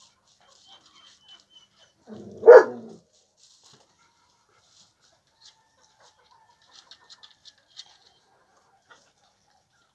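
A dog barks once, loud and short, about two and a half seconds in, with a lower, quieter growl just before it. A few faint ticks follow near the end.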